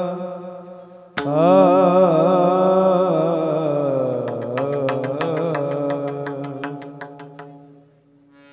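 Devotional kirtan music: a long, wavering melodic line with a steady drone beneath it, joined about four seconds in by a steady rhythm of sharp metallic clicks, about four a second. It all fades out near the end.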